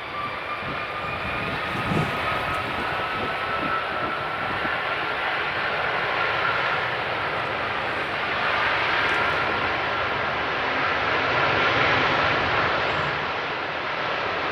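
Airbus A330's twin jet engines at takeoff power: a steady jet noise with a whine that slowly rises in pitch, growing louder through most of the stretch.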